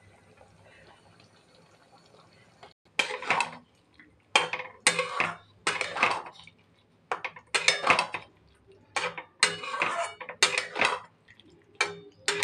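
Metal spatula scraping and clattering against a metal kadhai while stirring paneer cubes into a thick gravy. It starts about three seconds in as sharp strokes at uneven spacing, roughly one to two a second.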